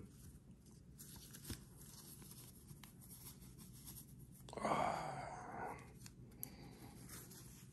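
Faint rustling and handling noise as white cotton gloves are pulled on by hand, with a few small ticks and one louder swish lasting about a second, about four and a half seconds in.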